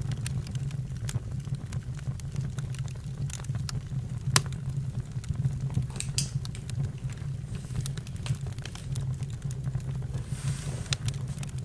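Campfire burning: a steady low rumble with irregular sharp crackles and pops, the loudest pop about four seconds in, and a brief hiss near the end.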